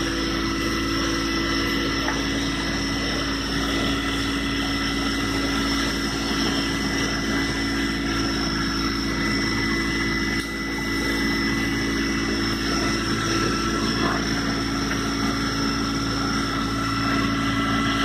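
A small cabin cruiser's engine running steadily under way, a constant drone with a few held tones over the rush of water, heard from inside the boat's covered cockpit.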